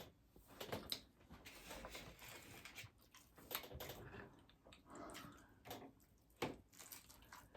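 Near silence, with faint scattered clicks and soft rustles of someone eating and handling taco food.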